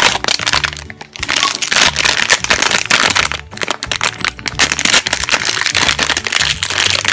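A foil blind-box pouch being crinkled and torn open by hand, with dense sharp crackling throughout, over background music.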